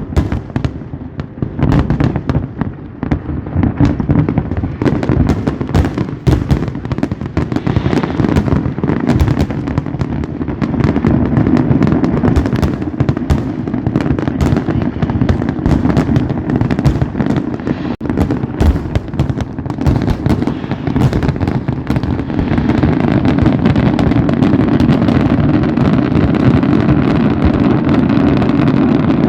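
Fireworks display with aerial shells bursting in rapid, overlapping bangs. About three-quarters of the way through, the bangs merge into a denser, continuous barrage.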